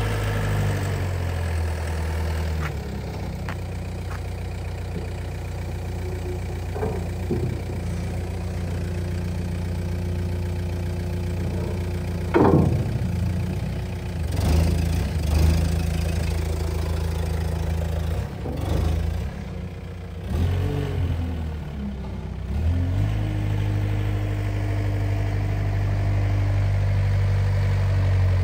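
Liebherr L508 Compact wheel loader's diesel engine running. It settles to a lower idle about a second in and speeds up again at about 23 seconds, holding the higher speed. A brief whine rises and falls about 12 seconds in.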